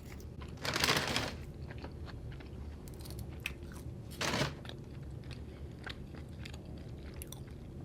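A person chewing a mouthful of brisket taco close to the microphone, with small wet clicks and two louder crunchy mouth noises, about a second in and after about four seconds.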